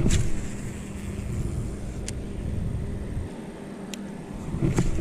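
Wind buffeting the microphone as an uneven low rumble, with a few light clicks scattered through it.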